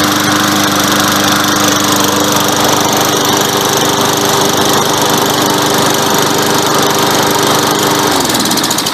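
Toro 6.5 hp lawn mower engine idling steadily with its clogged air filter removed, which cures the miss. Near the end it is shut off and winds down to a stop.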